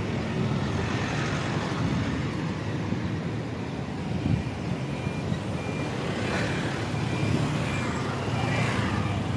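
Road traffic in a jam: a steady rumble of vehicle engines and road noise. From about halfway through, a faint high beep repeats about twice a second.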